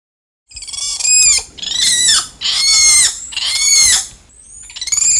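An animal calling loudly and repeatedly, about one harsh, high-pitched call a second, starting half a second in after silence, with a short pause near the end.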